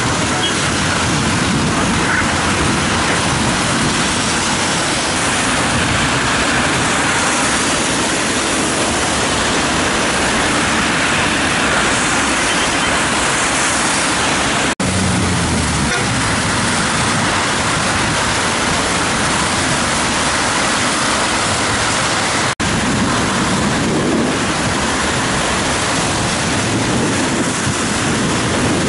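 Steady rain falling: an even, loud hiss that breaks off for an instant twice.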